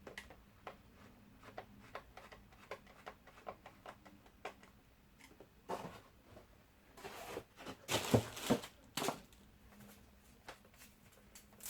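Plastic parts of a cordless stick vacuum being handled and fitted together while its handle screw is put in: scattered light clicks, then a louder run of rustling and knocks about seven to nine seconds in.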